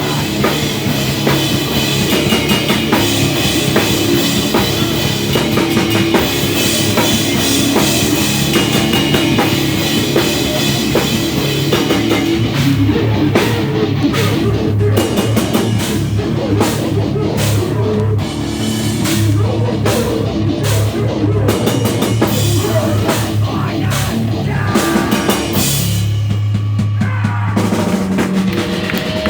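Live rock band playing loud: drum kit, guitar and bass together. From about halfway the band hits in stop-start bursts with short gaps between them, and near the end everything but a held low bass note drops out for about a second before the band comes back in.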